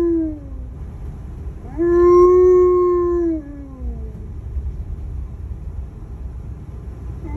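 Alaskan Malamute howling: a long, steady howl ends with a downward slide just after the start, and a second howl about two seconds in holds for about a second and a half before sliding down. A low road rumble from the moving vehicle runs underneath, alone in the last few seconds.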